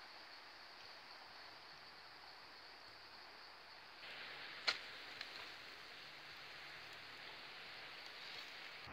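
Small wood campfire burning under a roasting fish, giving one sharp crackle a little past halfway and a smaller one half a second later, over a steady high insect drone. The fire's hiss grows louder about four seconds in.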